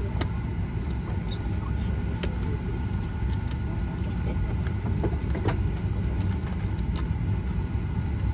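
Steady cabin noise inside a Boeing 737-800 as it is pushed back from the gate: a dense low rumble with a faint steady whine above it, and a few light clicks.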